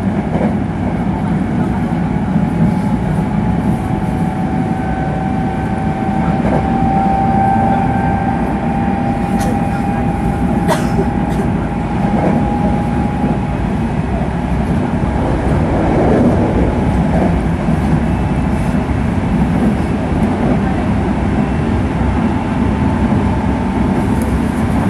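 Sanyo Electric Railway 5030 series electric train running at speed, heard from inside the car: a steady rumble of wheels on rail under the traction motors' VVVF inverter whine, which rises slowly in pitch for the first several seconds and then fades out about halfway through. A few sharp clicks sound near the middle.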